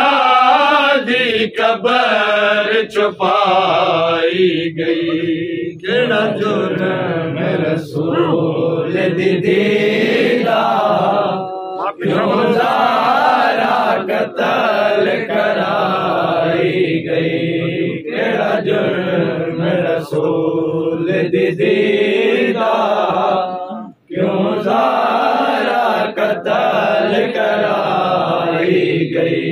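A group of men chanting a Punjabi noha, a Shia lament, together in a strong unison line, breaking off briefly twice between lines.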